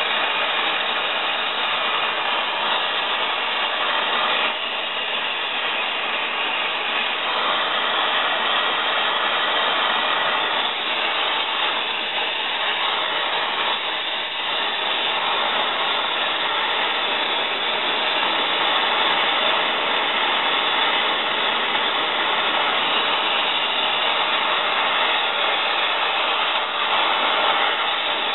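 Oxy-acetylene torch flame hissing steadily while heating rusted, seized bolts to free them.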